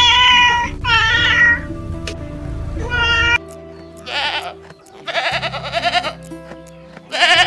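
A cat meowing, three drawn-out meows in the first three and a half seconds. After that come three quavering bleats, the middle one the longest, all over steady background music.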